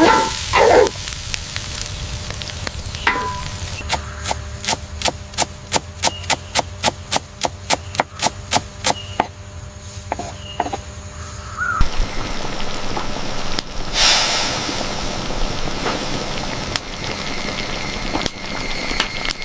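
Quick, even chopping knocks of a knife on a wooden board, about four a second for several seconds, followed later by a steady hiss that swells briefly.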